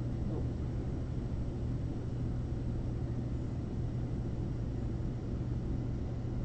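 Room tone: a steady low hum over an even low rumble, with no speech.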